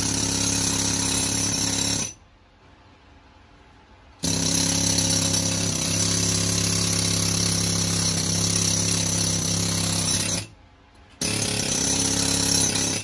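Pneumatic chipping hammer, run off an air compressor, hammering rapidly against rock to chip a niche into the wall of a mine drift. It runs in three spells, stopping for about two seconds after the first couple of seconds and briefly again near the end.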